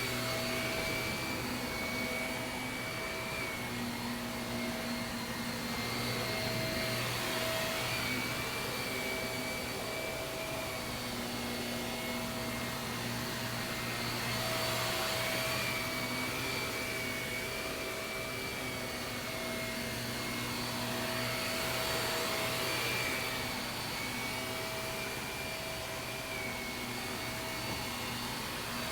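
Shark vacuum cleaner running steadily on carpet, a motor whine with a slightly wavering high tone, swelling and easing about every seven seconds.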